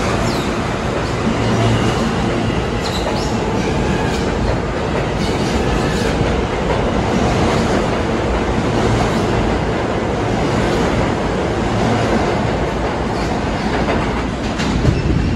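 R160B subway train with Alstom propulsion running past the platform. Its steel wheels give a steady loud rumble on the rails, clattering over the rail joints, with a few brief faint wheel squeals in the first few seconds.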